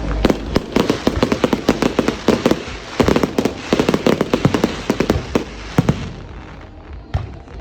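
Fireworks going off in a rapid, crackling barrage of many sharp bangs for about six seconds, then thinning to a few scattered pops near the end.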